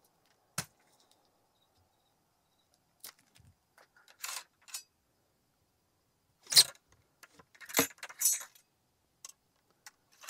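Steel ramrod clinking, scraping and rattling against the muzzle and bore of a muzzle-loading Enfield rifle musket as a paper cartridge is rammed down and the rod drawn back out. The sound comes as scattered short metallic clinks, with the loudest rattles about six to eight seconds in.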